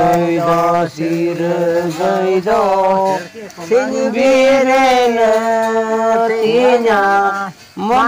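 A man singing a slow, chant-like song in long held notes, with short breaks between phrases.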